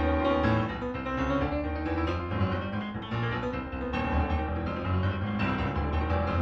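Piano music: a steady bass line under runs of quick notes.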